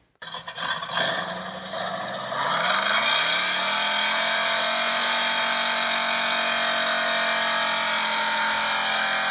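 Engine revving: uneven bursts at first, then the revs climb over about a second and hold steady at a high, even pitch.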